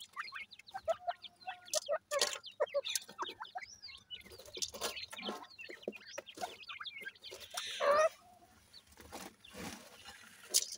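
Francolin chicks and an adult giving short chirps and soft clucks while pecking and scratching in gravel, with many quick ticks. A louder, rougher scratching sound comes about eight seconds in.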